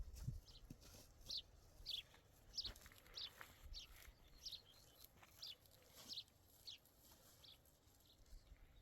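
A small bird chirping faintly, short high notes that drop in pitch, repeated about every half second to second and stopping near the end.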